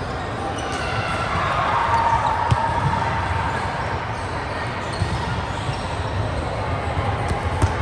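Volleyball play: a few sharp ball hits at irregular moments over steady court noise.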